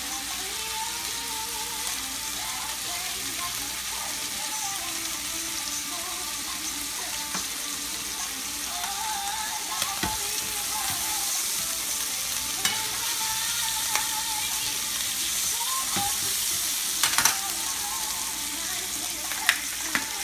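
Flank steak searing in a frying pan, a steady sizzle, with a few sharp clicks of tongs against the pan as the steaks are handled, the loudest about 17 seconds in.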